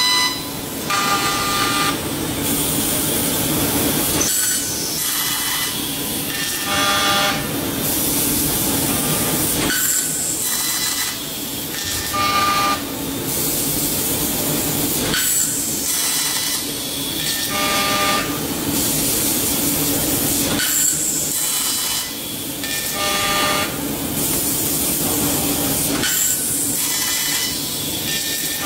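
20 kW fiber laser cutter cutting thick carbon steel: a steady loud hiss of the cutting jet, with a short whining tone that comes and goes every few seconds.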